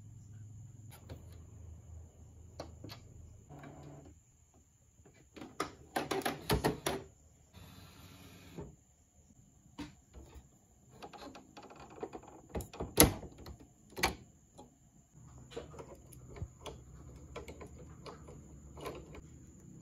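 Plastic clicks, knocks and rattles of ink cartridges being handled and unclipped in the cartridge holder of a Canon iP2770 inkjet printer. There is a cluster of clicks about six seconds in, a short scraping rush around eight seconds, and the sharpest click near thirteen seconds.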